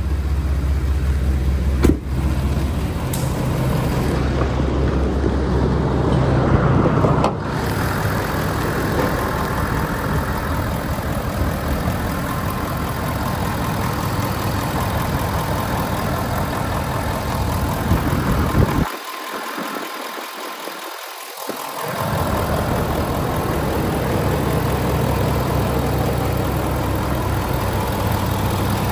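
Ford 6.7L Power Stroke V8 turbo diesel idling steadily, with a sharp knock about two seconds in. The low rumble drops out briefly about two-thirds of the way through.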